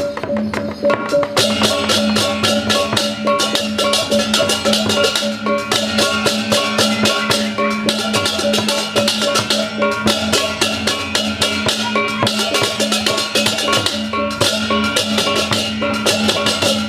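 Balinese gamelan playing fast, driving music: drum strokes and ringing metal tones, with bursts of crashing cymbals that come and go every second or two.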